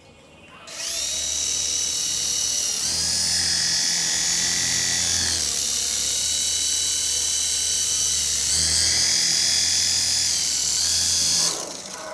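Hand-sensor infrared toy helicopter's small electric motors and rotors running: a high-pitched whine that starts suddenly, shifts pitch up and down a few times, and cuts off near the end.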